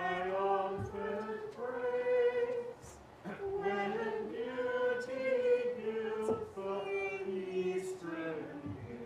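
Church choir singing a slow hymn, the voices holding long notes.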